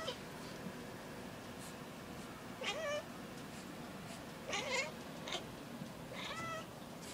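A domestic cat making three short calls, each wavering in pitch, about two seconds apart, while it stalks a fly on the window pane.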